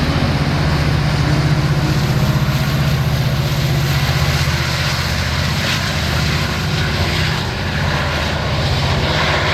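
Metra MP36 diesel locomotive's engine running with a steady, loud low drone as the train pulls away.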